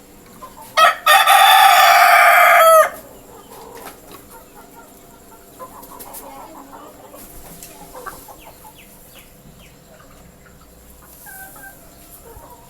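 A desi rooster crows once, very loud and close, about a second in, for about two seconds. Desi hens cluck softly for the rest of the time.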